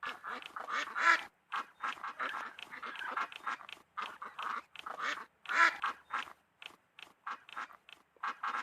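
Ducks quacking in a rapid, irregular series of short calls, several a second.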